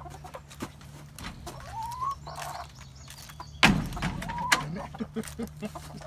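Domestic hens clucking as they feed, with short rising calls about two seconds in and again past the four-second mark. A single loud knock a little past halfway, among scattered small ticks.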